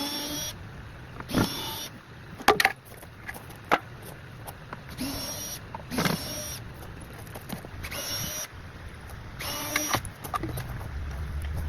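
A cordless power drill whirring in four short bursts, with sharp knocks and clatter between them, as screws are driven out during a teardown.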